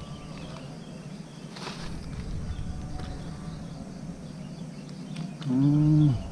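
Outdoor ambience of faint bird and insect calls over a steady low rumble. Near the end a person gives a brief loud hum, its pitch rising then falling, the loudest sound here.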